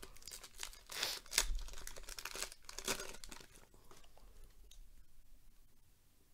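A trading card pack's wrapper being torn open and crinkled, with dense crackling and rustling for about the first three seconds. After that comes softer rustling as the cards are taken out and handled.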